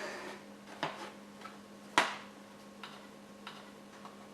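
A few sharp plastic clicks and knocks, the loudest about two seconds in, as a Roomba robot vacuum's dustbin is handled and emptied.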